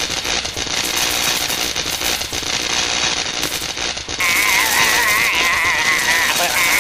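Electric crackling and zapping of a lightning sound effect, a dense run of fine snaps. About four seconds in it gets louder and a wavering, warbling tone joins the crackle.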